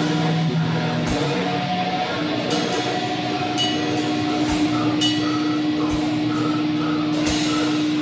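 Harsh noise music: a loud, continuous wall of amplified noise through a guitar amp with held droning tones, struck by about five irregular metallic cymbal hits.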